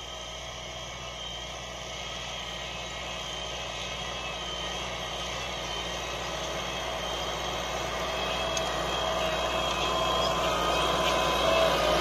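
Valmet 985 tractor's diesel engine running steadily while pulling an offset disc harrow through the field, growing steadily louder as it approaches.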